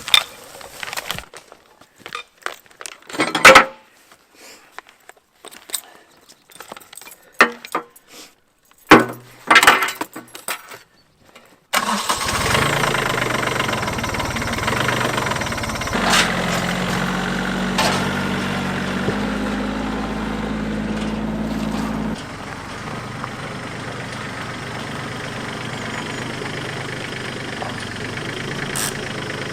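A few sharp knocks as logs are handled, the two loudest a few seconds apart. About twelve seconds in, an engine starts and keeps running steadily, dropping a little in level about ten seconds later.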